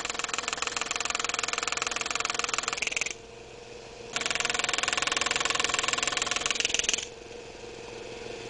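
GRS Gravermeister pneumatic engraving handpiece rapidly hammering a graver into the steel of a pocket knife, cutting the main design: two runs of about three seconds each with a short pause between, then it stops about two-thirds of the way through. A steady hum lies underneath.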